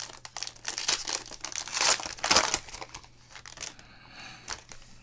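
Foil football-card pack being torn open, the wrapper crinkling and crackling for about two and a half seconds, then fainter rustling as the cards are slid out.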